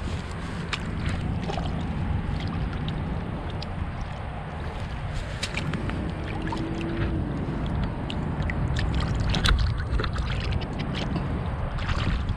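Wind rumbling on the microphone, with small splashes and sloshing of shallow water as a hand releases a largemouth bass and it swims off.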